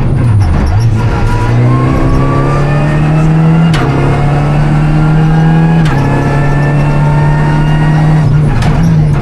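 Onboard sound of a Renault Clio Rally5's turbocharged three-cylinder engine being driven hard. The revs dip and recover about half a second in, then climb steadily and fall back sharply near four and six seconds, each fall marked by a click like a sequential gearbox upshift, with another dip near the end.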